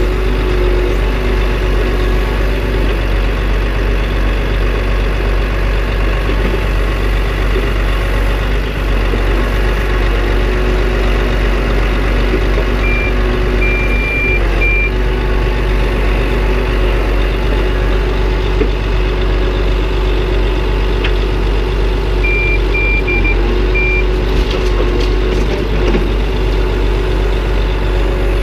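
DAF eight-wheel grab lorry's diesel engine running steadily while it powers the crane and grab loading soil. Two short runs of high reversing beeps from another vehicle sound over it, around the middle and again about two-thirds of the way through.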